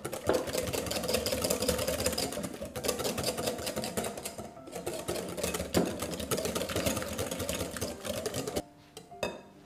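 Wire balloon whisk beating softened butter in a glass bowl: a fast, steady rattle of the wires knocking against the glass, with a few brief pauses. It fades away near the end. The butter is being worked into a soft, creamy pommade.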